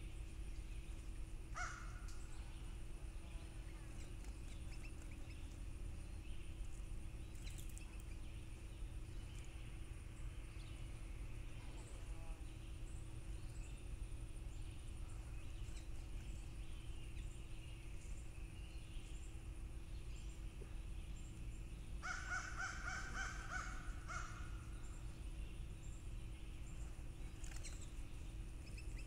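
A crow cawing in a quick run of harsh calls about two-thirds of the way through, over a steady low hum and a few faint chirps from small birds.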